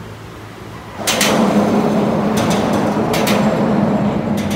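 Motorboat under way: the engine's steady hum grows much louder about a second in and holds, with several sharp knocks over it.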